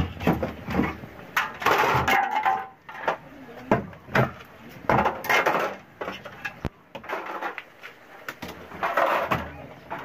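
Irregular knocks, clicks and scraping as plastic fittings are pulled and pried out of the inside of an old refrigerator, with a few longer rattling stretches.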